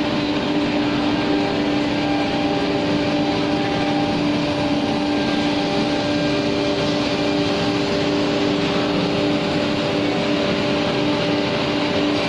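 Plywood CNC router running steadily: a constant whine from the 7.5 kW spindle over a rushing noise of machine and dust extraction, with no change in pitch or level.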